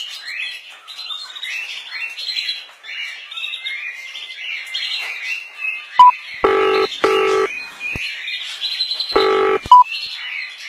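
A motorcycle alarm going off in short bursts: about six seconds in, a sharp single beep, then two short steady horn-like toots, a click, a third toot and another sharp beep. Birds chirp steadily all through.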